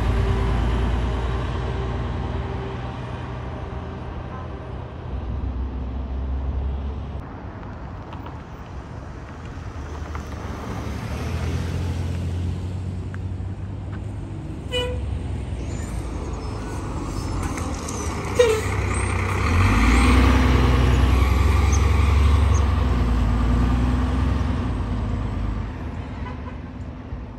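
Diesel CTA city buses (New Flyer low-floor): one pulls away and its engine fades, then another approaches and passes close, its engine rumble loudest a few seconds before the end. A short horn toot comes about halfway through.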